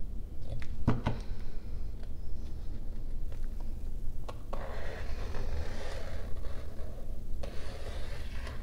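Silver paint pen and metal ruler on a canvas: a few sharp clicks and taps in the first second as the ruler is set, then a scratchy stroke of the pen tip drawing along the ruler edge for about three seconds, over a low steady rumble.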